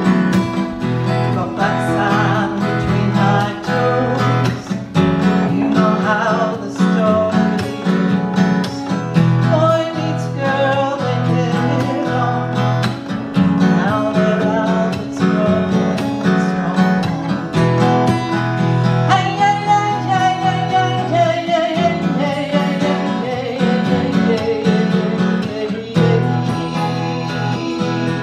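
Two acoustic guitars playing a song together, with a woman singing over them.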